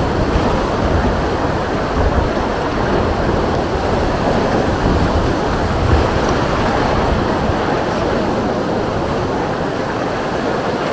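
Wind buffeting the microphone in a gusty low rumble over the steady wash of sea surf.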